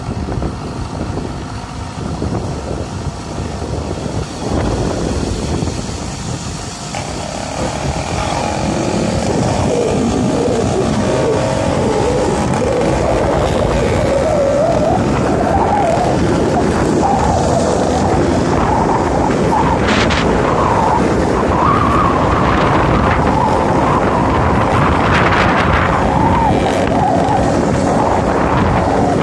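80cc two-stroke motorized-bicycle engine running under load while the bike is ridden flat out. About a quarter of the way in its pitch climbs and it grows louder, then holds high, wavering with the throttle. Wind rushes over the microphone throughout.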